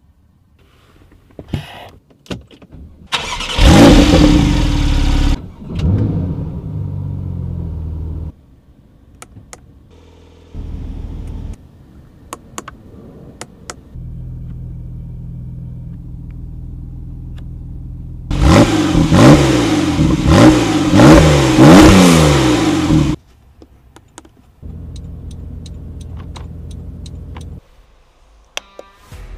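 Porsche 911 Carrera's flat-six engine starting with a loud flare of revs that falls back to a steady idle, then revved in a series of quick throttle blips that rise and fall. Switch clicks and stretches of steady idle come in between.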